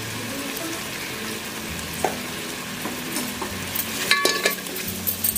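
Masala of onions, potatoes, tomatoes and ground spices sizzling as it fries in oil and is stirred in the pot. About four seconds in, a few sharp clinks of the spoon against the pot, with a brief ring.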